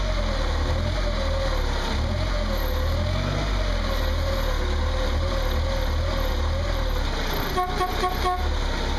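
Forklift truck engine running steadily, its note wavering slowly up and down as the pedals are worked. Near the end come a few short beeps.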